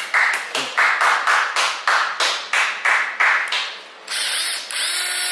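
A tool working wood in quick repeated scraping strokes, about three a second, then a steadier whirring noise for the last second or so.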